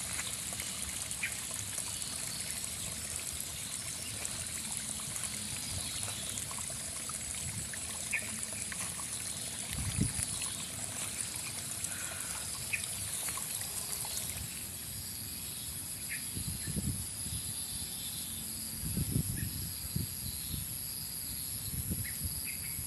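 Baby monkey sucking and chewing on a piece of peeled fruit: small wet smacking and slurping clicks over a steady high hiss, with a few soft low bumps around the middle and later on.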